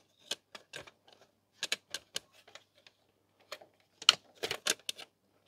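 Plastic clicks, taps and knocks as a CD player's disc tray is worked through the front opening of its chassis. The clicks are irregular, in loose clusters, and the loudest bunch comes about four seconds in.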